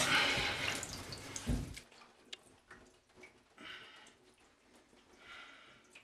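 Water dripping and splashing in a bathtub as a wet kitten is handled, with a thump about a second and a half in. After that it is nearly quiet, with a couple of faint soft rustles as a towel is rubbed over the kitten.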